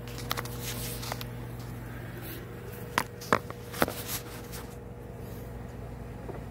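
A handful of sharp clicks and knocks, spread through the first four seconds or so, over a steady low electrical hum.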